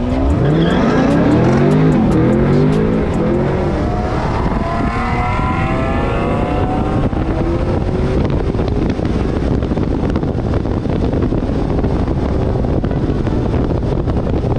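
Car engine at full throttle on a drag strip launch, its pitch climbing, dropping back at each gear change and climbing again, loudest in the first three seconds. About seven seconds in the rising engine note gives way to a steady rush of engine and wind noise to the end of the run.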